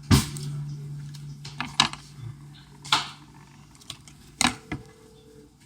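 Irregular sharp clicks and taps of small phone parts and tools being handled on a workbench, about five in all, the loudest at the very start. A low steady hum runs under the first half or more.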